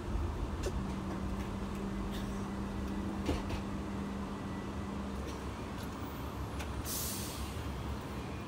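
Rumble of a passenger train running, heard inside a first-class coach, with a few faint clicks. A steady low hum lasts for roughly the first half. A short hiss comes about seven seconds in.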